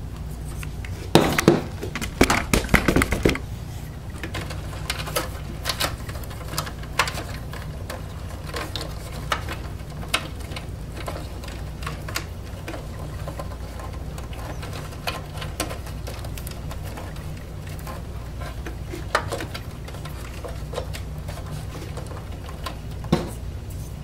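Power-supply cables and plastic connectors clicking and rattling against the metal case of a Dell Optiplex 380 desktop tower as they are handled. A flurry of rattles comes about a second in, then scattered single clicks, over a steady low hum.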